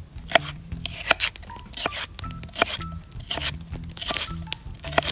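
Kitchen knife slicing celery stalks on a wooden cutting board: a series of crisp, crunchy cuts, irregularly spaced, roughly one or two a second.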